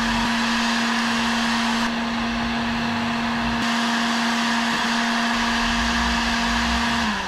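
Electric heat gun running, its fan blowing with a steady hum, while it shrinks heat-shrink tubing onto crimped cable lugs. Near the end the hum starts to fall in pitch as the gun winds down.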